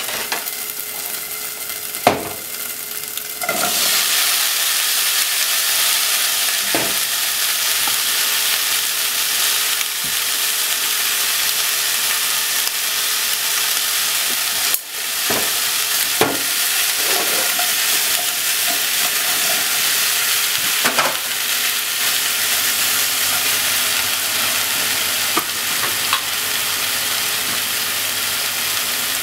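Bacon sizzling in a nonstick pot, the sizzle growing louder about three and a half seconds in as sliced onion and potato are added to the hot fat. The frying continues while the vegetables are stirred with wooden chopsticks, with a few short knocks against the pot.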